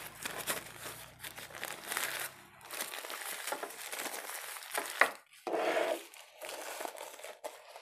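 Tissue paper crinkling and rustling as it is folded around a bundle of fresh coriander leaves and pressed into a plastic container, in a quick run of small crackles.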